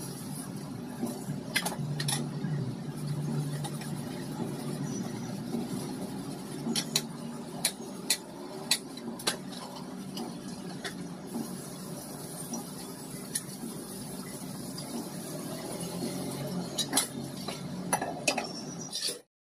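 Dishes and steel utensils clinking and knocking as they are washed by hand at a steel kitchen sink, with scattered sharp clinks over a steady low hum. The sound cuts off abruptly near the end.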